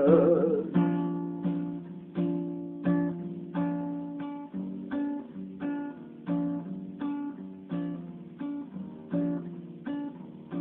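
Acoustic guitar strumming chords in a steady rhythm, with a strong stroke about every 0.7 s and lighter strokes in between. A man's held sung note fades out in the first second.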